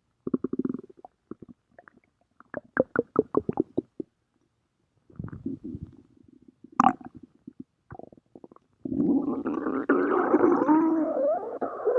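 Stomach growling: short gurgles and quick bubbling pops come and go, then about nine seconds in a longer continuous rumble sets in, its pitch wavering up and down.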